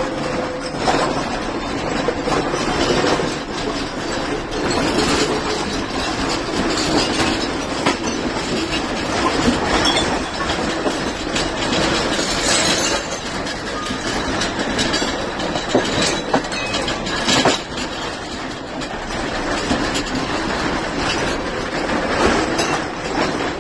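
Continuous rattling and clattering of things shaken by a magnitude 8.8 earthquake, with frequent sharp knocks, steady throughout.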